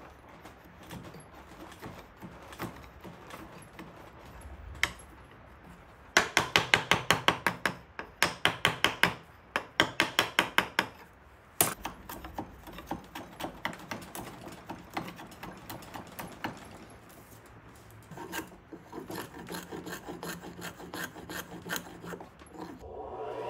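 Hand tools shaving and scraping the end grain of a hardwood cutting board's curved handle. A run of quick, even strokes, about four or five a second, comes a quarter of the way in, then a single sharp knock, then a second, quieter run of strokes near the end.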